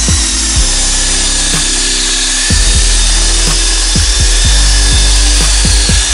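Handheld electric belt sander running steadily against a wooden hull, a continuous sanding hiss with a steady high motor whine, heard over background music with a steady beat.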